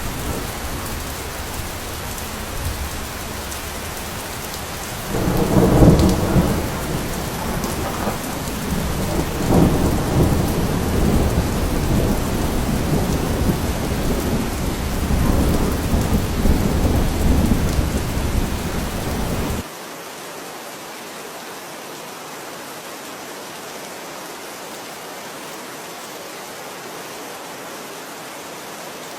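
Steady rain with thunder: a loud clap about five seconds in, then rumbling that rolls on for some fifteen seconds. The thunder and the deep part of the rain cut off suddenly about two-thirds through, leaving an even, thinner rain hiss.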